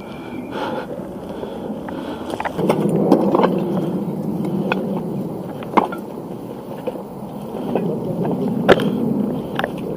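Rustling and scuffing noise of a player moving with his gear, with a few sharp clicks, one about six seconds in and a louder one near nine seconds.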